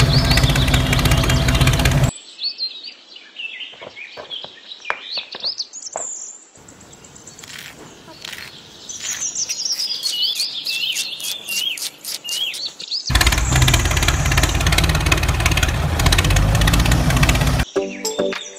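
A small mini-tractor engine running loudly, which stops abruptly about two seconds in, giving way to birds chirping with scattered clicks. The engine cuts back in loudly after about thirteen seconds, and music starts just before the end.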